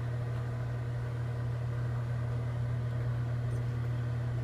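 Microwave oven running, a steady electrical hum with no change in pitch or level.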